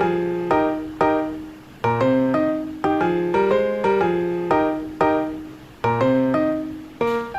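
Background piano music: chords and single notes struck every half second or so, each fading away before the next.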